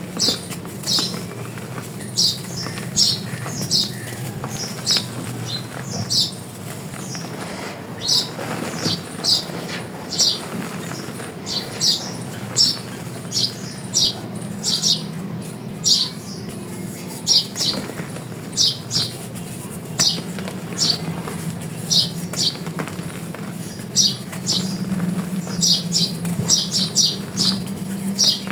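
Dry chalk being crushed and crumbled, giving crisp crunches about one or two a second over a faint low steady hum.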